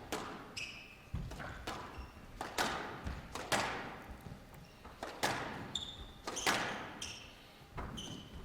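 Squash rally: the ball is struck by rackets and smacks off the court walls every half second to a second, with short squeaks of players' shoes on the court floor between the shots.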